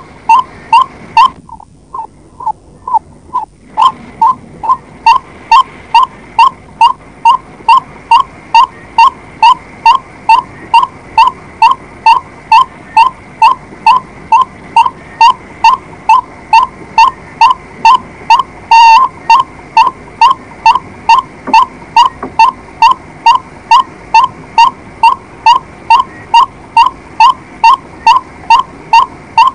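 White-breasted waterhen calling: a monotonous string of short, identical notes repeated about twice a second. The notes drop away for a couple of seconds near the start, then carry on at full strength.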